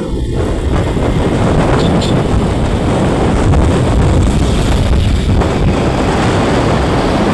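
Wind buffeting the microphone on a moving motorcycle, with the motorcycle's engine and road noise as a steady rumble underneath.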